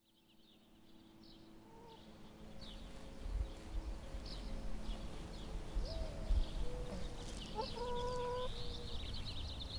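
Backyard farm ambience fading in from silence: small birds chirping in short repeated notes, and a chicken giving a drawn-out call a little before the end.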